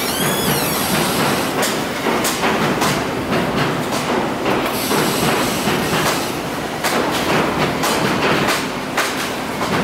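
A train rumbling and clattering past on a railway viaduct, with a brief high squeal at the start and repeated sharp knocks throughout.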